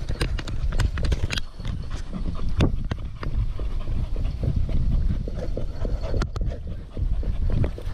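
Quick running footfalls on a concrete sidewalk, with a dog panting alongside on its leash.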